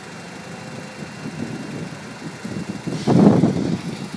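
1996 Acura Integra's 1.8-litre four-cylinder engine idling under the open hood, with a friction-reducing additive freshly added to its oil. A brief louder noise sounds about three seconds in.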